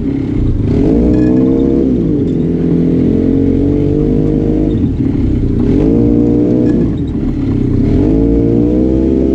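Arctic Cat Wildcat Trail 700 side-by-side's engine running while riding, its pitch rising and falling about four times as the throttle is opened and eased off.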